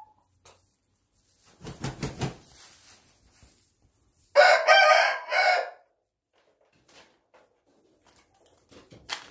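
A rooster crows once, loud and about a second and a half long, a little over four seconds in. Before it comes a brief scuffling rustle.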